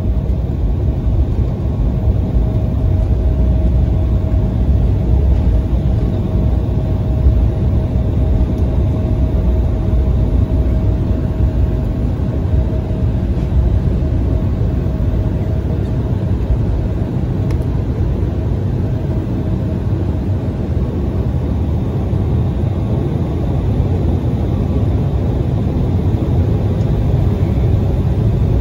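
Cabin noise of an Embraer 175 regional jet taxiing, heard from a window seat: the steady low rumble of its GE CF34-8E turbofans at taxi power, with a thin steady whine that fades out about halfway through.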